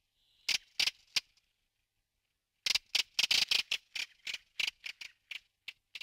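Redwing giving short, dry, chattering call notes: three single notes, then a quick run of about a dozen from near the middle that spaces out and fades.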